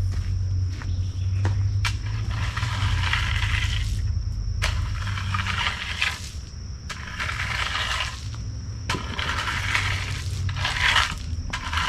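John Deere 1025R subcompact tractor running steadily while gravel crunches and scrapes in repeated bursts of a second or so as the road is graded.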